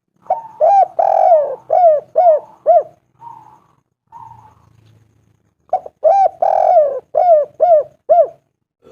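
Spotted dove cooing: two loud phrases of about six short, arched coos each, the second note of each phrase drawn out longer, with a few soft notes in the gap between the phrases. It is the male's song, used to call a female.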